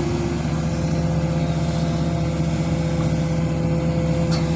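Hydraulic excavator's diesel engine running steadily under load while it scoops wet river sand and lifts it out, a constant hum with held tones and no change in speed.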